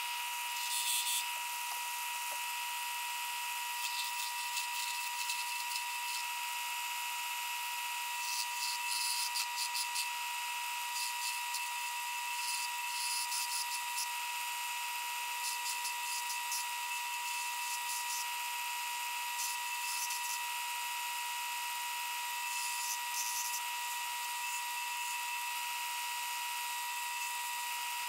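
Wood lathe running with a steady high whine while a gouge cuts the spinning wooden blank, the cuts coming as short hissing scrapes every few seconds.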